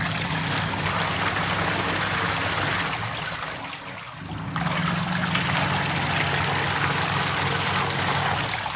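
LG washing machine's wash motor running, its pulsator churning the water in the tub with a steady hum; the sound eases about four seconds in, then picks up again. The wash function is working.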